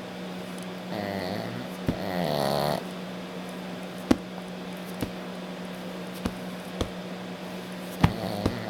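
A sleeping dog snoring: two rasping snores in the first three seconds and another beginning near the end, with a steady low hum underneath and a few sharp clicks between them.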